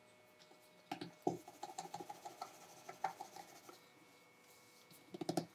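Wooden rolling pin rolling out a thin round of pastry dough on a floured countertop: soft, irregular scraping and light knocks starting about a second in, with a short cluster of louder knocks near the end.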